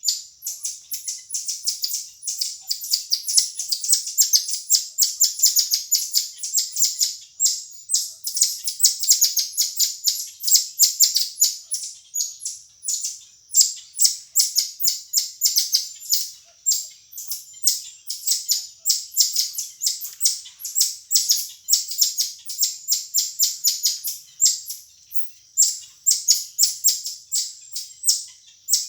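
Marmoset (mico) calling: a continuous run of short, high-pitched chirps, several a second.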